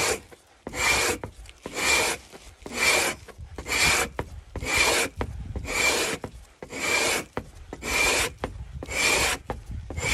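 Axe-head hide scraper drawn down a frozen moose calf hide on a frame in steady strokes, about one rasping scrape a second, each with a faint high ring. The strokes are frost-scraping off the remaining hair and smoothing out the grooves left by a smaller scraper.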